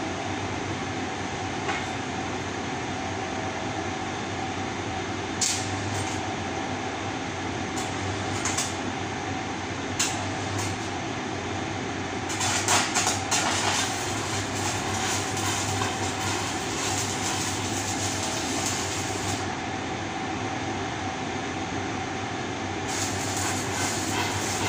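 Electric arc welding on a steel pipe guide: the arc crackles and hisses from about halfway until a few seconds before the end, then strikes again near the end. Under it runs a steady workshop hum with a faint constant tone, and a few sharp metal knocks come in the first half.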